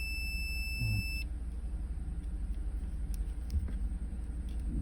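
Multimeter continuity beeper sounding a steady high tone that cuts off about a second in, the sign that the probes touched two relay terminals with continuity between them. A steady low rumble runs underneath.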